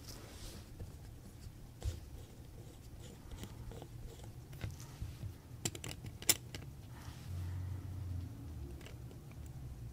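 Small metallic clicks and scrapes of a watchmaker's steel screwdriver backing out the barrel bridge screws of a pocket watch movement. A few scattered sharp ticks, the sharpest a little after halfway, over a low steady hum.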